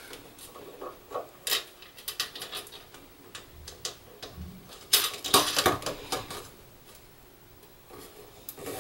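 Light, irregular metallic clicks and rattles as a nut is tightened down on an aviation plug's threaded body inside a metal control box, with a burst of louder clicks and scrapes about five seconds in.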